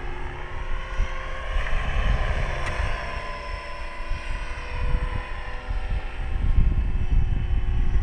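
Align T-Rex 550 electric RC helicopter flying, its motor and gear whine and rotor hum drifting slowly up and down in pitch as it moves around. Gusts of wind buffet the microphone with a low rumble, loudest about two thirds of the way in.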